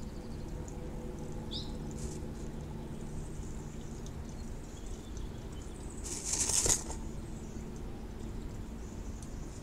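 Female bluebird shifting in a nest box: a short rustle and flutter of wings against the grass nest about six seconds in, over a steady low hum.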